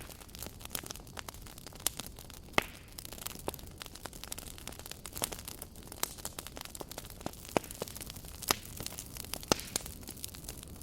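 Campfire crackling: irregular sharp pops and snaps over a soft steady hiss, with a few louder pops scattered through.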